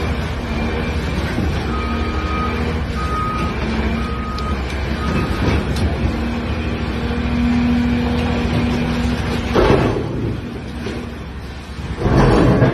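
Large tracked excavator's diesel engine running under load as its bucket scrapes and pushes broken concrete rubble. Four short alarm beeps about a second apart sound partway through, and rubble crashes twice near the end, the last and loudest as the bucket drops its load.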